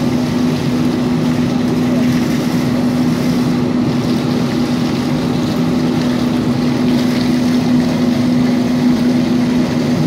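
A steady motor hum holding one constant low tone, under the rush and splash of water from a garden hose rinsing out a washing machine part.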